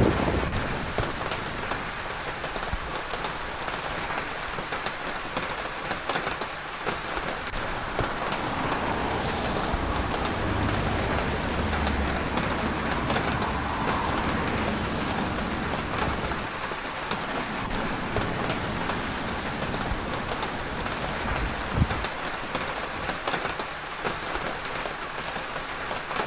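Steady rain falling on a wet city street, an even hiss. Around the middle a vehicle goes by on the wet road with a low rumble and tyre hiss, and there is one short thump late on.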